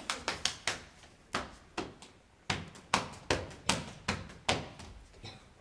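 A run of sharp taps and stamps from a dancer's shoes and hand slaps on a stage floor, about two to three a second in an uneven rhythm, with a short pause about a second in.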